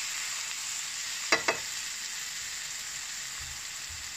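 Onions, tomatoes and green chillies frying in oil in a stone-coated wok, a steady sizzle, with two quick clinks about a second and a half in.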